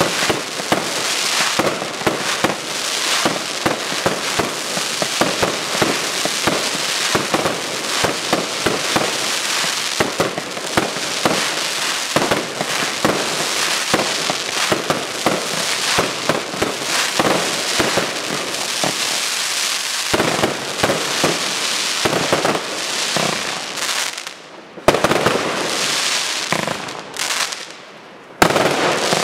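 Aerial fireworks firing in a dense barrage of shell bursts and crackling stars. Near the end the barrage breaks off twice, and each short lull is followed by a sudden loud boom.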